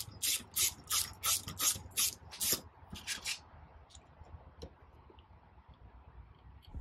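Quick, even rasping strokes, about three a second, from a hand tool working a bolt out of the jet pump's bearing plate; they stop about three and a half seconds in, leaving a few faint clicks.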